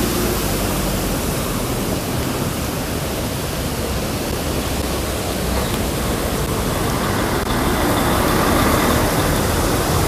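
Steady hiss of car tyres on a wet road as traffic passes close by, with no distinct events and a little louder near the end.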